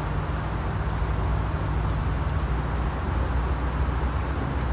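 Steady low outdoor rumble with no clear single source, and a few faint light ticks.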